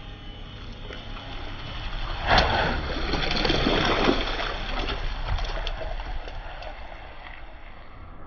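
Car tyre rolling over a row of water balloons on wet concrete, bursting them with a sudden pop about two seconds in, followed by a couple of seconds of splashing water.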